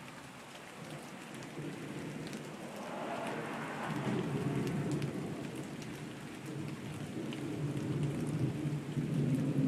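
Rain falling steadily, with a low rolling rumble of thunder that builds a couple of seconds in and swells again near the end.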